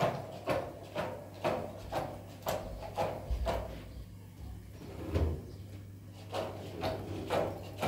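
A regular series of knocks or thuds, about two a second.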